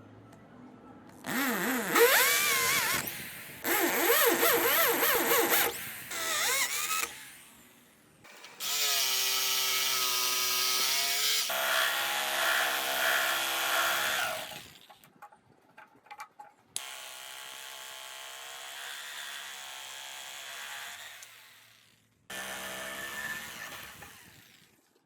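Electric power tools working wood in several short bursts, each starting and stopping abruptly. In the first few seconds the motor's whine dips and rises as the tool bites into the wood; the later bursts hold a steadier pitch.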